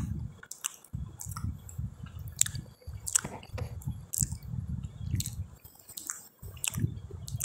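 Close-up chewing of a mouthful of rice and okra curry, with wet mouth smacks and clicks. It comes in bouts broken by brief pauses.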